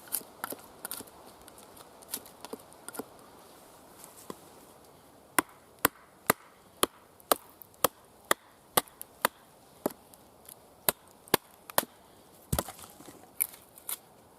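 Wood being chopped with an axe: scattered knocks at first, then a steady run of sharp strikes about two a second through the middle, turning irregular again near the end.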